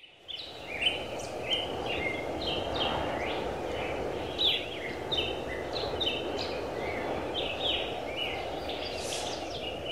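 Birds chirping and calling over and over in short, quick falling notes, over a steady even rush of background noise.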